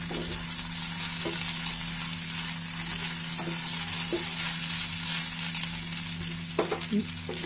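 Vermicelli upma sizzling in a non-stick kadhai while a wooden spatula stirs and scrapes through it, over a steady low hum.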